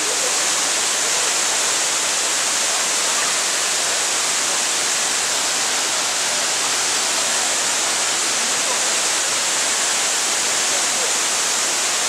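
Waterfall, a wide curtain of many thin falls beside a larger main fall dropping into a pool, giving a steady, even rush of water.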